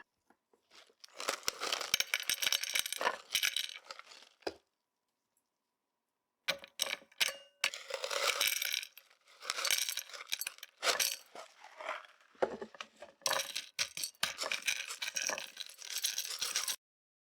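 Small hard granules, such as terrarium gravel or substrate, poured into a glass jar, rattling and clinking against the glass. There is one long pour, then a series of shorter pours later on.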